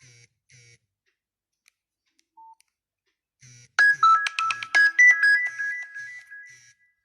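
Nokia 6500 Slide phone ringtones: two short pulsed notes end one tone, a single short beep follows, then nearly four seconds in a fast run of bright electronic notes begins, settling into held high tones that fade out.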